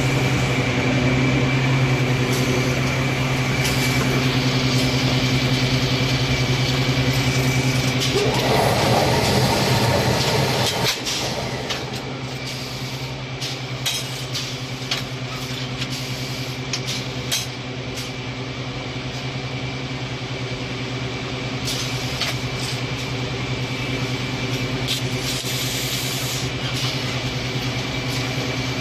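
Steady hum of an automatic drum-liner bagging and cable-tie machine, louder in the first few seconds. About a third of the way in a rushing noise swells for two seconds and cuts off sharply. A run of sharp clicks and knocks follows as the machine gathers the liner bag.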